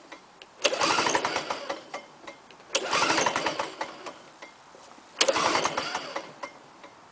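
Lawn-Boy F-series two-stroke mower engine being pull-started three times; each pull brings a short burst of engine sound that quickly dies away without it keeping running. The engine is a little flooded and won't start.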